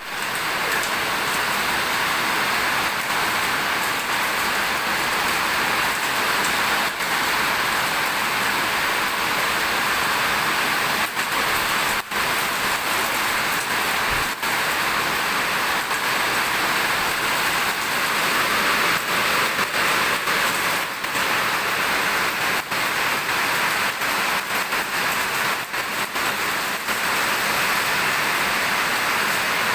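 Steady rushing and splashing of falling water, an even hiss without rhythm.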